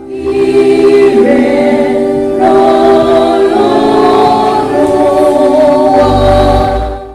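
A choir singing gospel music, several voices holding long chords together, fading out at the end.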